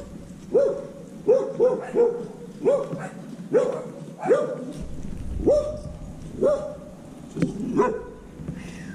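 Small dog barking repeatedly in short, high-pitched yelps, about a dozen, irregularly spaced and sometimes in quick pairs.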